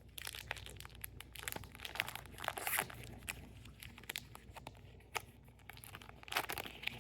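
A trading-card pack wrapper being torn open and crinkled in the hands, as a string of irregular crackles with busier bursts about two seconds in and again near the end.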